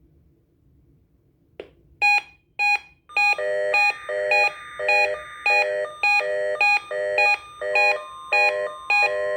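NOAA Weather Radio receivers going into alert for a Required Weekly Test: a click, then rapid repeating alert beeps about twice a second. Over the beeps come a burst of buzzy SAME header data in the middle and a steady warning-alarm tone near the end.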